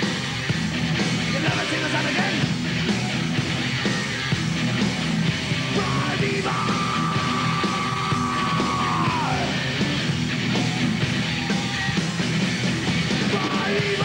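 Heavy metal band playing live with distorted guitar, bass and drums while the singer yells. Midway through he holds one long high scream that falls off at its end, and a shorter one comes near the end.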